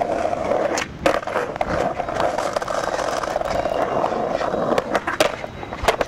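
Skateboard wheels rolling steadily over stone pavement, with sharp clacks of the board about a second in and again near the end, as the board meets the ledge.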